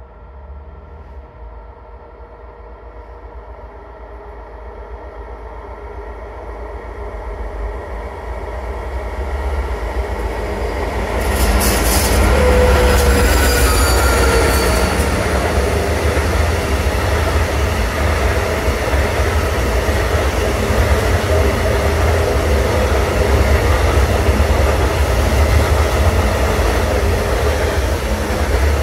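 A train approaching and getting louder for about ten seconds, then passing close with a steady heavy rumble. High squeals from the wheels sound for a few seconds just as it comes alongside.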